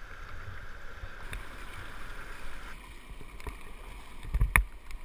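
Steady rush of river water around a whitewater kayak, heard through an action camera, with a few small knocks and one loud, sharp knock with a low thud shortly before the end.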